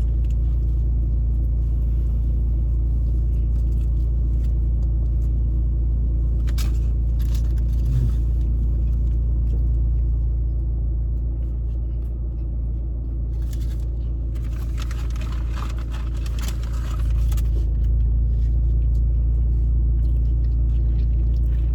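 Steady low rumble of a car, with brief rustling and clicking noises about seven seconds in and again for a few seconds past the middle.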